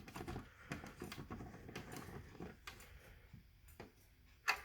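Faint clicks and rustling from hands working fire alarm equipment, with one sharp click near the end.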